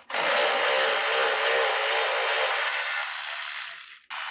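Cordless power ratchet with a 12 mm socket whirring as it spins out the bolts of the exhaust front-tube support: one long run of about four seconds, then a brief stop and a short second burst near the end.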